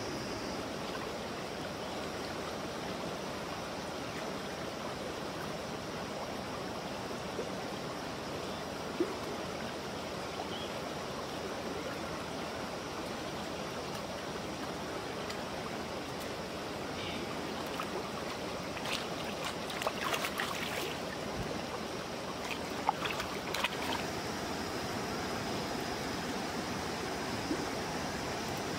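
Steady rushing of a nearby river or stream, with a scattering of short clicks and knocks about two-thirds of the way through.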